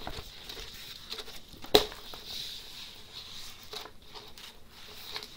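Rustling and crinkling of a rolled, plastic-covered diamond painting canvas being unrolled by hand, with one sharp knock a little under two seconds in.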